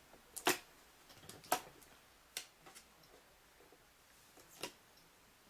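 Mortise lock body being pushed into its pocket in the door edge: four sharp clicks and knocks at irregular intervals, with fainter ticks between.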